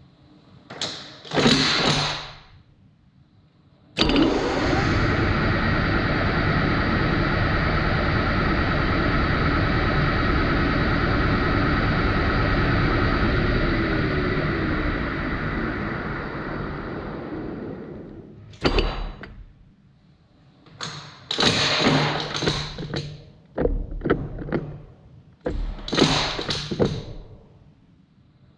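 Metal lathe spindle starting abruptly and running steadily at about 560 rpm with a gear whine, then winding down to a stop. Short clunks and knocks come before the start and in a run after it stops.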